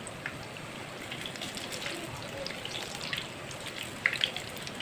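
Besan tikkis sizzling in hot oil in a frying pan, a steady hiss full of small crackles, with a few sharper pops about four seconds in.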